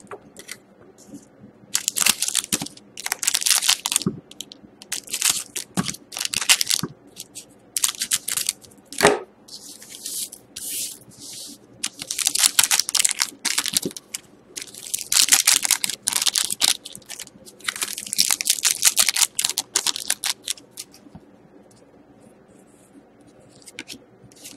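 Foil trading-card packs (Panini Certified hockey) being torn open and crinkled by hand, in a string of short ripping and rustling bursts that die away near the end.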